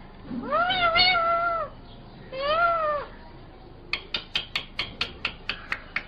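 Rose-ringed (Indian ringneck) parakeet giving two drawn-out calls, the first long and level, the second shorter and arched, then a quick run of sharp clicks at about four a second.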